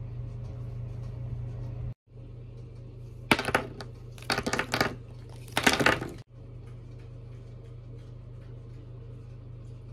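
Small Pentel watercolour paint tubes clinking and clattering against each other in three quick bursts between about three and six seconds in, over a steady low hum.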